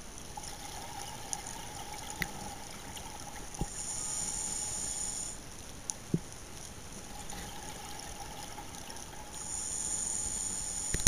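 A scuba diver's breathing heard underwater through the regulator. Exhaled bubbles rush and gurgle about four seconds in and again near the end, with a few faint sharp clicks in between.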